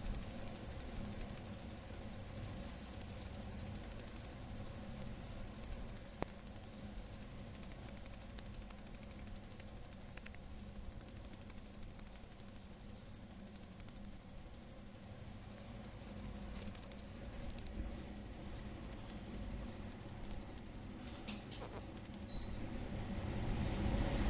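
A cricket calling close by: a loud, continuous, high-pitched trill made of rapid pulses. It breaks off for an instant about a third of the way through, then keeps going until it stops abruptly near the end.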